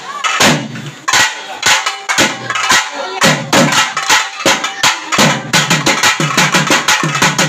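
Thavil barrel drum played solo with a stick, sharp strokes about two a second at first, then quickening to a fast, even beat about five seconds in.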